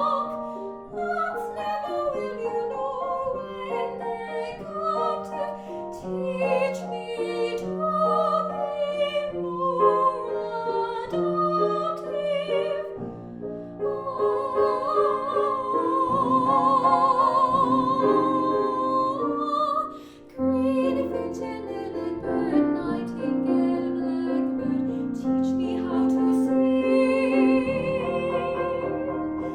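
A woman singing in a classical, operatic style over piano accompaniment. About halfway through she holds one long high note with a wide vibrato, then breaks off briefly before the melody goes on.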